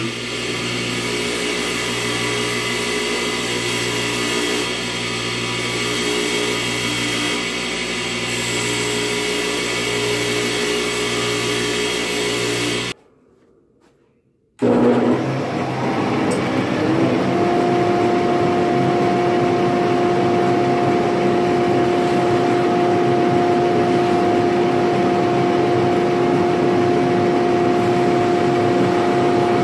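Bench motor running a steel wire wheel that scrubs annealing fire scale off a brass trombone brace tube, with a steady hum. After a sudden break to near silence, another bench polishing wheel runs with a steady hum and hiss as the tube is worked against it.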